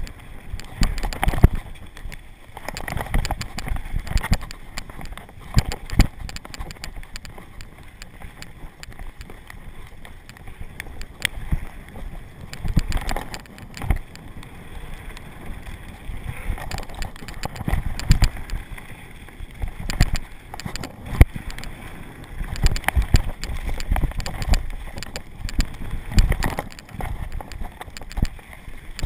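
Downhill mountain bike descending a dirt trail at speed: tyre noise on hardpacked dirt, with frequent sharp knocks and rattles as the bike hits bumps, and wind on the microphone.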